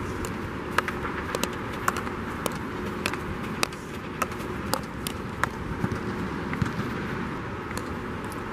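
Field hockey stick tapping the ball in sharp clicks, about two a second, as the ball is dribbled on artificial turf, over a steady rushing background noise.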